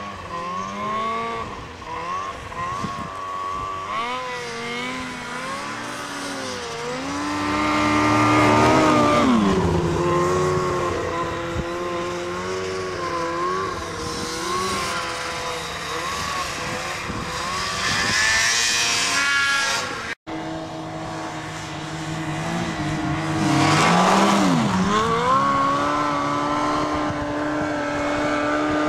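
Snowmobile engines revving up and down as the sleds ride through powder snow. The engine swells loudest around eight to nine seconds in and again around twenty-four seconds, each time followed by a sharp drop in pitch before it climbs back. The sound cuts out for a moment about twenty seconds in.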